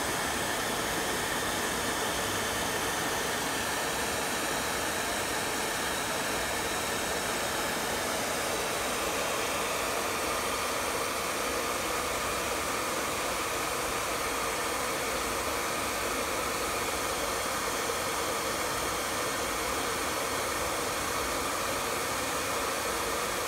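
Handheld electric hair dryer running steadily, a constant rushing blow of air with a faint steady whine.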